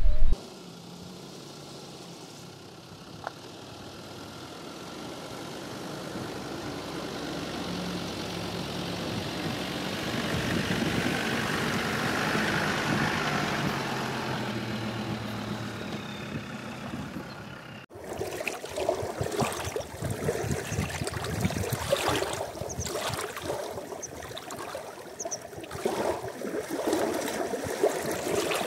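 A vehicle's engine and tyres growing louder over about twelve seconds and then fading as it drives past. After an abrupt cut about eighteen seconds in, an uneven, choppy noise follows.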